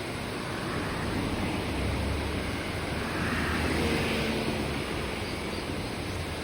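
Babbling mountain stream, the Kibune River, flowing in a steady rush of water, with a low rumble swelling briefly in the middle.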